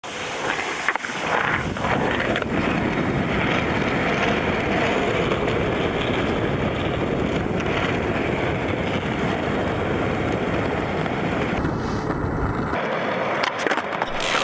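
Skateboard wheels rolling on an asphalt court, a steady rolling noise, with a few sharp clacks of the board in the first few seconds.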